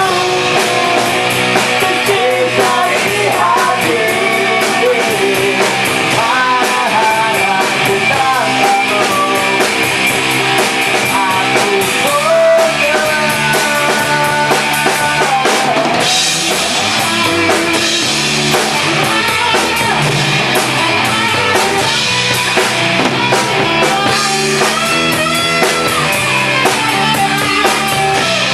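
A rock band playing live at rehearsal: electric guitar, electric bass and drum kit together, loud and steady.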